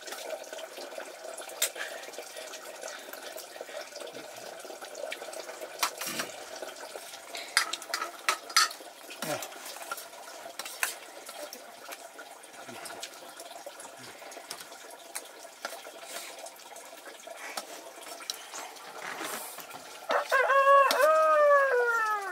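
A rooster crows once near the end: one long call that rises and then falls in pitch. Under it is a steady rush of running water with scattered clicks and knocks.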